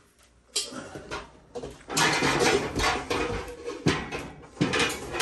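Metal pots and pans clattering and knocking against each other as a roasting pan is dug out of a lower kitchen cabinet. There are a few single knocks, then a busy stretch of rattling from about two seconds in, then more knocks near the end.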